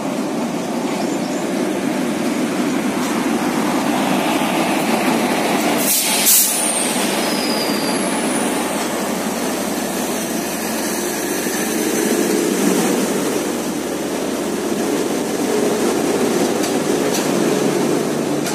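Express passenger train hauled by a WAP-4 electric locomotive passing through a station: steady rumble of the locomotive and coaches running over the rails. One brief loud knock about six seconds in.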